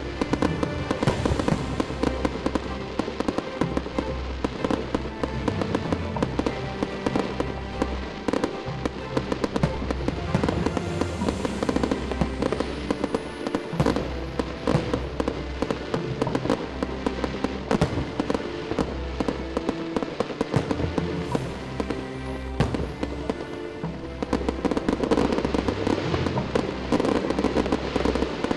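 Fireworks display: aerial shells bursting and crackling in quick succession throughout, over music playing at the same time.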